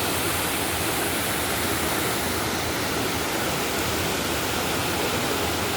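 Waterfall: water falling and rushing with a steady, unbroken noise.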